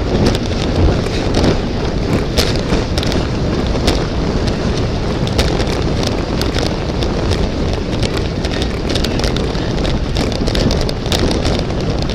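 Wind buffeting the microphone in a steady low rumble, with many small clicks and knocks scattered through it.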